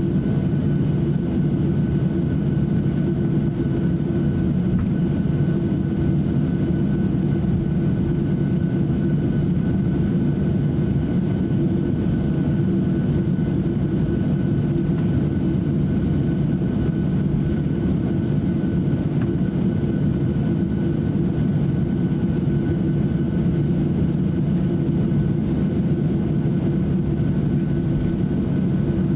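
Boeing 737-800 taxiing, heard from inside the passenger cabin. Its CFM56-7B engines run at low taxi power, making a steady drone with a faint high whine.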